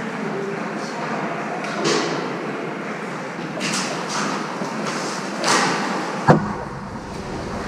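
Ice hockey play in a rink hall: skate blades scraping the ice in several short strokes and sticks working the puck over the steady hum of the arena, with one sharp knock about six seconds in.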